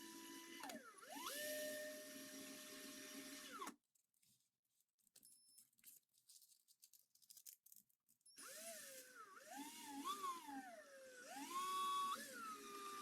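Small high-speed power tool motor whining, its pitch jumping and wavering as the speed and load change. It stops abruptly about a third of the way in and starts again after a few seconds of near silence.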